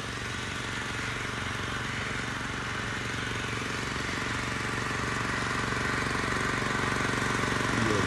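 Two-wheel power tiller's 7 hp four-stroke engine running steadily under load as its rotavator churns dry soil, growing louder as the machine comes closer.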